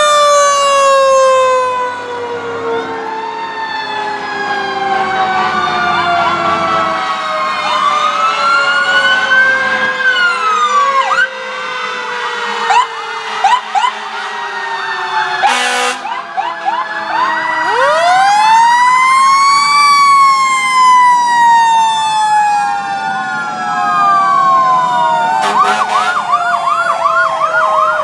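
Several fire-truck sirens sounding together as the trucks pass. Sirens wind up to pitch and slowly fall away, with one big wind-up a little past halfway, and a rapid yelp toward the end. A short loud blast cuts in about halfway through.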